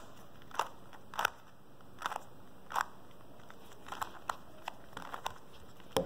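Plastic stickerless 3x3 Rubik's cube being twisted layer by layer, each turn giving a short click, about ten of them unevenly spaced and quickening in the second half. These are the moves of the algorithm that inserts an edge piece into the cube's second layer.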